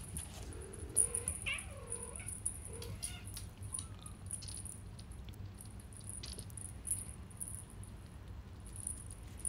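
A kitten mewing several times in the first three seconds, with a light, high jingling rattle and a few sharp taps throughout.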